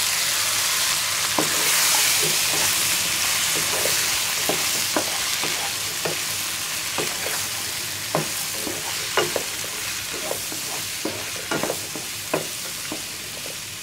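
Cut flat beans (shim, hyacinth beans) sizzling in hot oil in a karai as they are stirred with a spatula. The spatula scrapes and taps against the pan about once a second over the steady sizzle.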